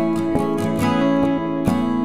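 Background music: a plucked string tune, with notes struck about twice a second over held chords.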